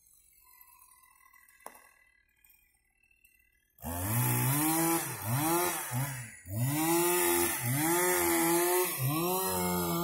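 Near silence at first, then a chainsaw engine starts up abruptly about four seconds in and keeps running, its pitch rising and falling about once a second as it revs.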